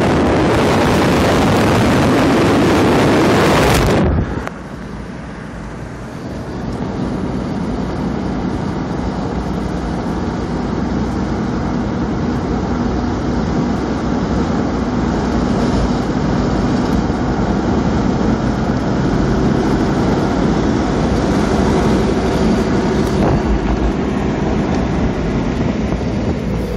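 Wind buffeting the microphone for about the first four seconds, cutting off sharply. Then a Porsche Boxster's engine runs steadily while cruising with the top down, over wind and tyre noise, slowly growing louder.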